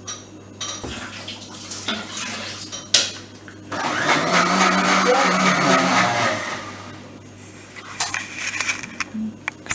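Electric kitchen blender running for about two and a half seconds, starting about four seconds in, with a sharp click just before it.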